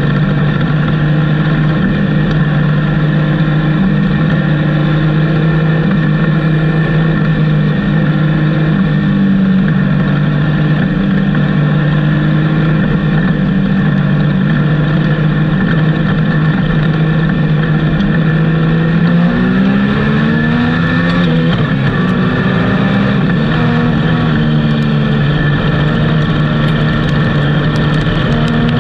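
Race car engine running at a steady pitch, heard from inside the car's cockpit. About two-thirds of the way through, the revs rise and fall briefly, then settle steady again.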